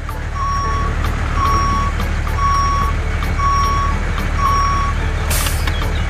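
Truck reversing alarm sounding five even half-second beeps, about one a second, over a steady low engine rumble, with a short hiss near the end.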